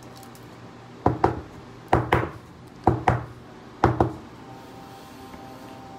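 Rigid plastic card toploader knocked against the table, four double taps about a second apart.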